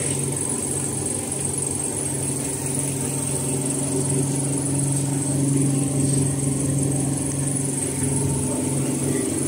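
Steady machine hum from running mask-making machinery, with a constant low drone and a faint high-pitched whine.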